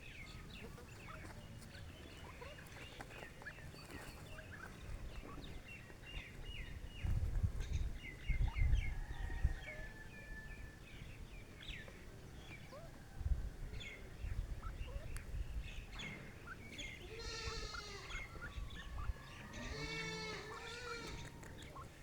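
Small birds chirping throughout, then a goat bleating twice in wavering calls near the end, with a few low rumbles in the middle.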